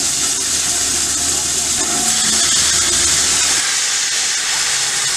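Victorian Railways J class 2-8-0 steam locomotive J549 venting steam at the front, a loud steady hiss that swells in the middle. A low rumble under it stops about two-thirds of the way in.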